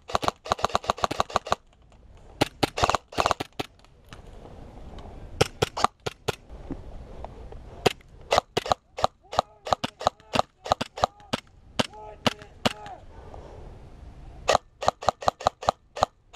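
Airsoft rifle firing in several rapid bursts, each a quick string of sharp cracks, with pauses between the bursts.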